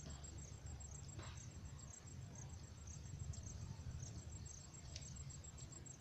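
Crickets chirping: a steady high-pitched trill with short chirps repeating through it, over a low rumble. About a second in, one falling sweep passes.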